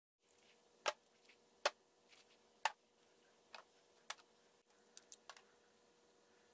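About ten sharp, irregular clicks and taps of small metal pipe fittings being handled and set down on a hard plastic tool case lid, the loudest in the first two seconds, over a faint steady hum.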